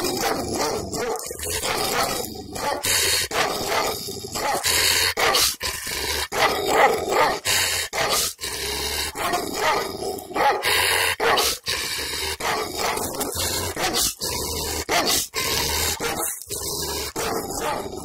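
Kangal shepherd dog barking repeatedly at close range, loud barks following one another with only short gaps, in an angry warning at the person in front of it.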